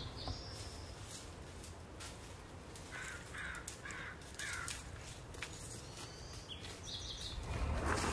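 A bird calling four times in a row, about two calls a second, with a few higher, shorter bird calls, over a steady outdoor rumble. A rush of noise swells near the end.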